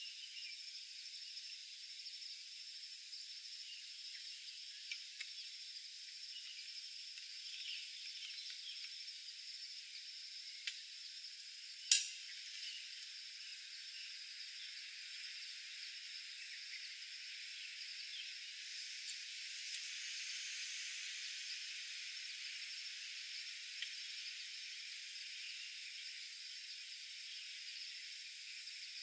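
A single sharp metal clink about twelve seconds in, among a few small handling clicks, over a faint steady high hiss. About two-thirds through, a small gas canister stove is lit: a couple of igniter clicks, then a steady burner hiss that carries on.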